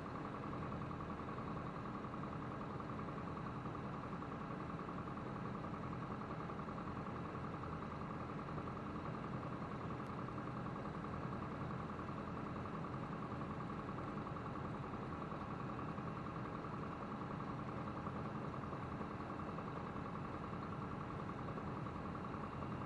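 Light single-engine piston aircraft engine running steadily at low taxi power, propeller turning, heard from inside the cockpit.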